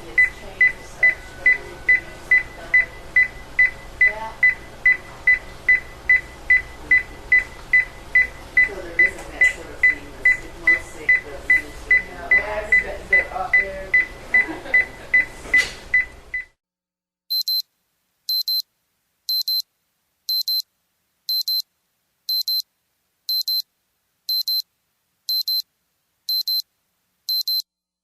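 Hospital patient monitor beeping fast and evenly, about two and a half beeps a second, over operating-room background noise. The noise cuts off suddenly about 16 seconds in, and a higher-pitched monitor beep then sounds about once a second, eleven times, on silence.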